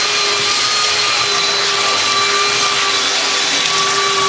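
Handheld electric belt sander running steadily while sanding across the face of glued-up wooden boards: a steady motor whine over the rush of the belt on the wood.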